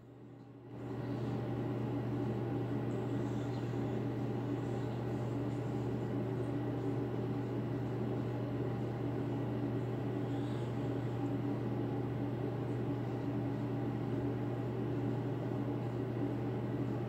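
A steady low hum with a few faint held tones above it, setting in about a second in and running on unchanged.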